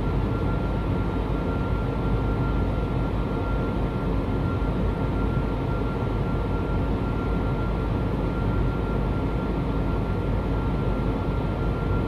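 Airliner cabin noise in flight: a steady roar of engines and airflow, heaviest in the low end, with a faint steady high tone above it.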